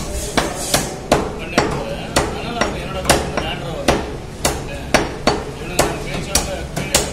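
A cleaver chopping chicken into pieces on a wooden block: quick, sharp, regular strikes, a little over two a second.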